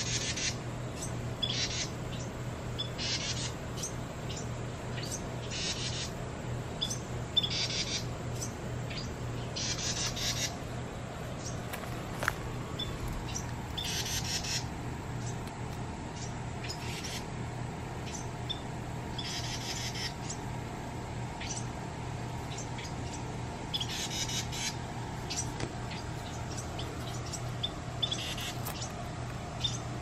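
Carolina wrens giving short, harsh calls, repeated every one to two seconds throughout, over a steady low hum.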